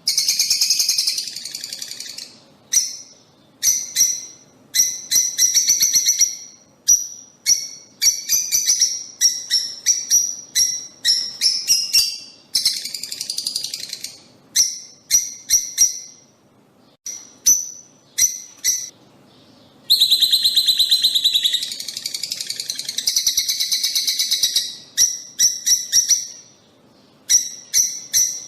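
Lovebirds calling: fast runs of sharp, high-pitched chirps and dense bursts of chatter, broken by a few short pauses.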